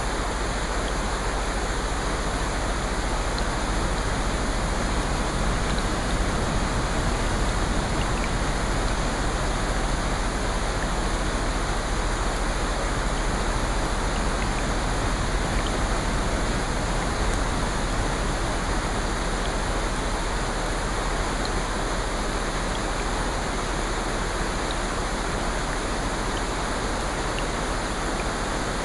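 Steady rushing water noise, even and unbroken, with a few faint scattered ticks.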